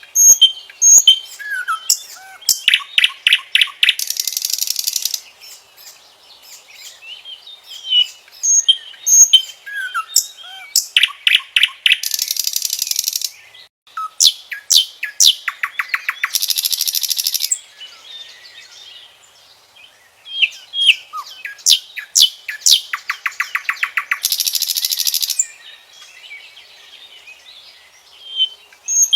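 Common nightingale singing loud, varied song phrases separated by short pauses. Each phrase mixes clear whistled notes, rapid repeated-note trills and a high buzzing rattle.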